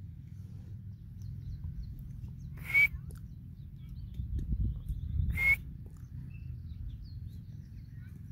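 Grey francolin giving two short, sharp call notes nearly three seconds apart, over a steady low rumble.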